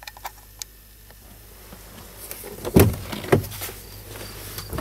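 A few light clicks, then two heavy dull thumps about half a second apart with some rustling, from handling inside a truck cab.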